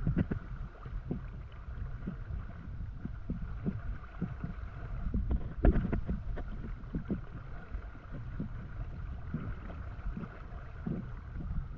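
Flooded cave river water rushing steadily, with irregular splashes, sloshes and knocks of people or a raft moving through the water.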